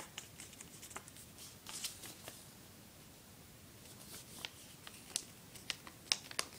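Sheet of paper rustling and crackling in the hands as it is folded in half and creased: scattered soft crackles, sparser for a second or so in the middle and busier toward the end.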